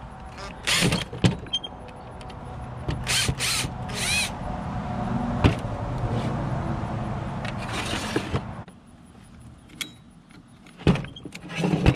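Cordless drill-driver running at low speed, backing small screws out of an alternator's rear rectifier end, with a few short clattering bursts; the motor stops about two-thirds of the way through, followed by a few clicks of parts being handled.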